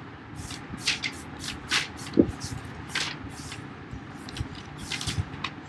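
A run of short rustling, scraping sounds close to the microphone, roughly one or two a second at an uneven pace.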